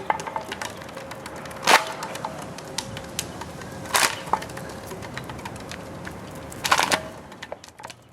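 Empty plastic bottle crackling and crunching as a toothless dog mouths and noses it, trying to pick it up: irregular clicks, with three loud cracks about two, four and seven seconds in.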